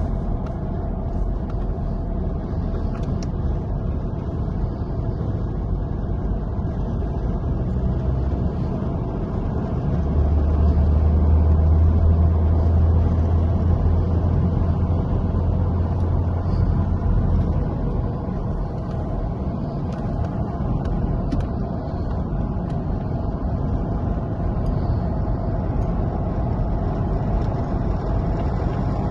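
A road vehicle running on the move, a steady low rumble of engine and road noise that grows louder for several seconds about a third of the way in.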